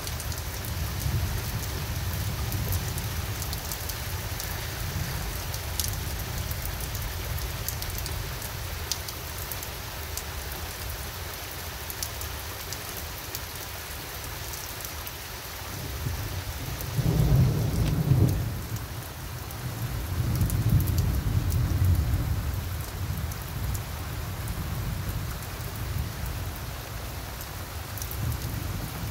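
Steady rain falling through a thunderstorm, with thunder rumbling low throughout. A louder peal of thunder comes a little past halfway, followed a couple of seconds later by a long, swelling rumble.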